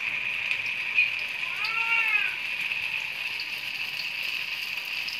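Flour-coated tofu blocks frying in oil in an aluminium wok: a steady sizzle with small crackles. About two seconds in, a short rising-then-falling call is heard over it.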